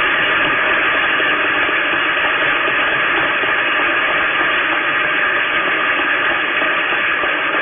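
Loud, steady hiss with no speech that can be made out: the noise floor of a worn archival film soundtrack.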